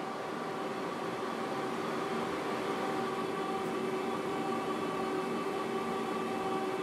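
Steady running noise of a moving vehicle, fading in, with a few faint steady hum tones over it.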